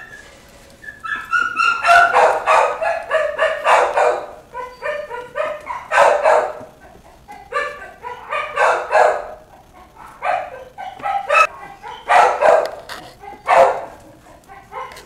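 Puppies yapping and yipping in repeated bursts of short, high-pitched calls.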